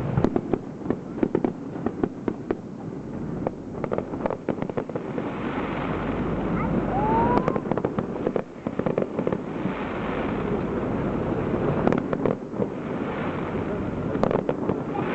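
Aerial fireworks shells bursting one after another, with dense crackling and low booms, and a short rising whistle about seven seconds in.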